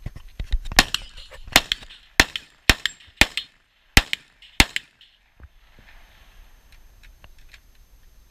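A string of about seven gunshots from a competitor's long gun, fired roughly every half second over the first five seconds, then stopping.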